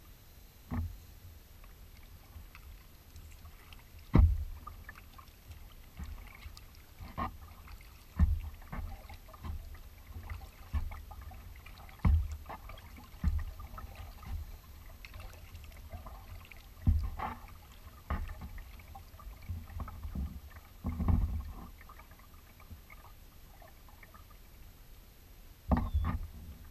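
A kayak under way on choppy water: paddle strokes and small waves slapping and knocking against the hull, in irregular thumps and splashes every second or so. The loudest knocks come about four seconds in and near the end.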